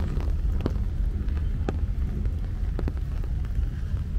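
Monsoon rain outdoors, with a steady low rumble of wind buffeting the microphone and scattered sharp, irregular ticks of drops landing close by.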